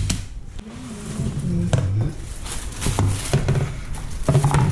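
Plastic bag of vegetables rustling and crinkling as it is handled, with sharp knocks and clatter of things set down on a kitchen counter. A low voice murmurs now and then underneath.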